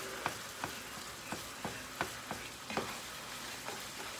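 Ground meat sizzling in a frying pan as it is stirred, the utensil scraping and knocking against the pan about three times a second.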